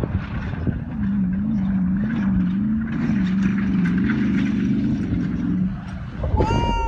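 Off-road truck's engine running hard across the sand, its pitch rising and falling repeatedly with the throttle. Near the end, as the truck leaves the ground over a bump, there is a sudden jolt of noise and then a loud, high cry that falls in pitch.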